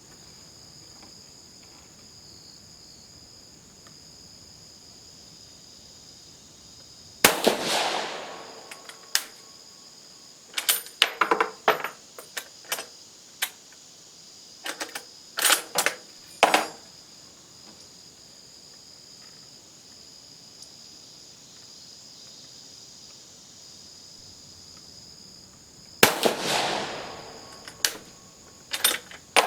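Two rifle shots from a Vetterli 1870/87/15 bolt-action rifle, rebored for 6.5 mm, each a sharp crack with a fading echo, the first about seven seconds in and the second near the end. Between the shots come bursts of metallic clicks and knocks as the bolt is worked. Crickets chirp steadily in the background.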